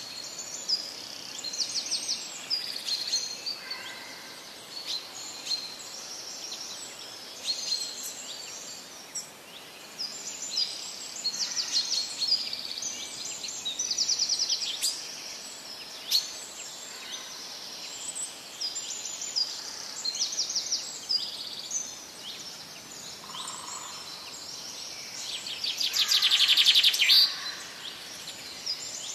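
Small birds chirping and singing, with short, fast trills repeating every second or so over a faint steady hiss. The loudest and longest trill comes near the end.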